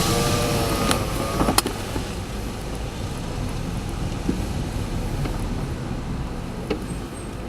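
Gale-force wind rushing and buffeting the microphone with a deep, steady rumble, a wavering whistling tone in the first second and a half, and a few sharp clicks.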